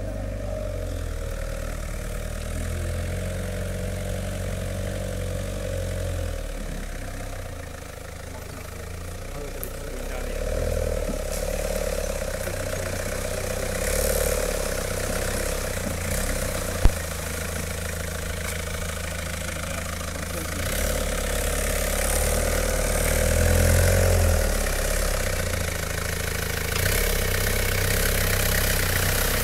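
Engine of an old open Jeep-style 4x4 running at low revs as it crawls off-road, rising and falling in level, with a single sharp knock about halfway through.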